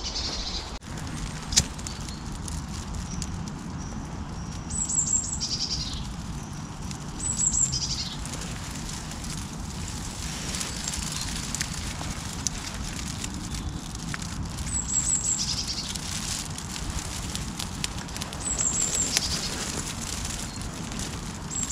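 A small kindling fire of twigs, lit from a burning ball of duct tape, catching and crackling with scattered small clicks over a steady low rumble. A short, high bird call that falls in pitch repeats about five times, a few seconds apart.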